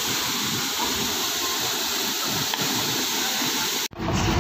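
Waterfall pouring into a plunge pool: a steady, even rushing of falling water. It cuts off abruptly near the end, replaced by a lower rumble.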